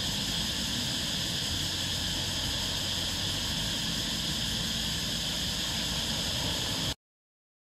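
Small waves breaking and washing up a sandy beach: a steady hiss over a low rumble, which cuts off suddenly near the end.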